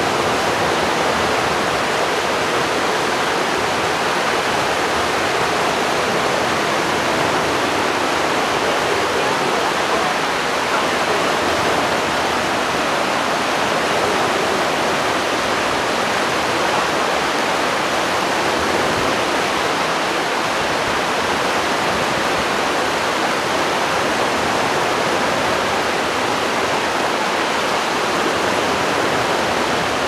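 Shallow brook running with spring snowmelt: a steady rush and babble of water.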